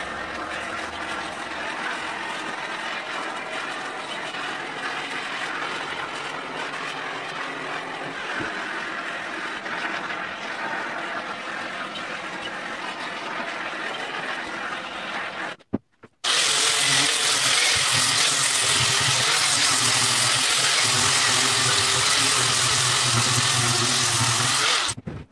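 Handheld propane torch burning in a steady hiss as it scorches carved wood to make the sign look old and weathered. About sixteen seconds in, a cut brings in an electric angle grinder running against the wood, louder and steady.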